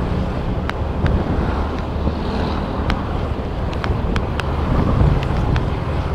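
Wind buffeting the microphone over a vehicle's steady running rumble while moving along a road. Scattered sharp ticks and clicks sound through it.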